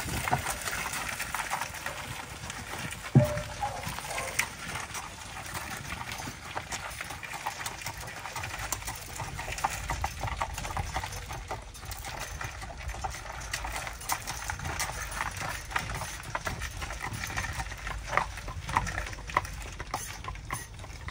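Horse's hooves clip-clopping on a gravel drive, heard from inside an enclosed buggy, over a steady low rumble. A single sharp knock stands out about three seconds in.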